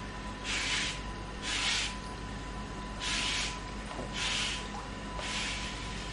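Wet climbing rope being drawn hand over hand through a rope brush, a swishing rub with each pull, five pulls about a second apart.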